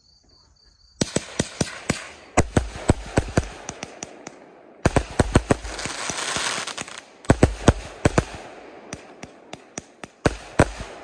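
Fireworks going off in a rapid string of sharp bangs over dense crackling. They start suddenly about a second in and come in several waves with short lulls between.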